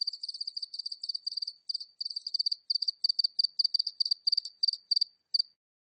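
A single cricket chirping steadily, a rapid run of short high chirps at about four a second, heard at medium distance; it stops about five and a half seconds in.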